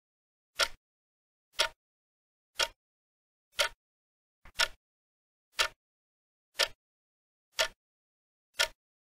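Countdown timer sound effect: a short clock-like tick once a second, nine ticks in all, with silence between them.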